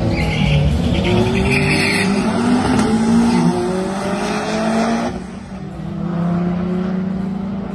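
Two cars launching off a drag strip start line side by side, their engines revving hard with the pitch climbing steadily as they accelerate away. About five seconds in the sound dips, then the engines climb again.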